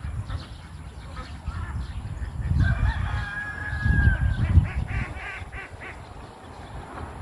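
Domestic ducks calling and quacking from a pond, with one long held call about three seconds in followed by a run of short calls. Low buffeting on the microphone in the middle.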